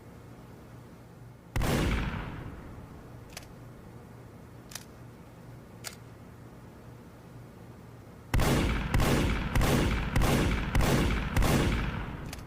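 Break-action revolver firing: one shot with a ringing tail, three light mechanical clicks, then six shots in quick succession about half a second apart, emptying the cylinder.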